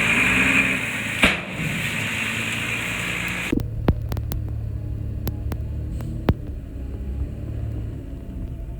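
Heavy diesel machinery engine running steadily. About three and a half seconds in the sound switches abruptly to a duller low engine hum, broken by several sharp clanks.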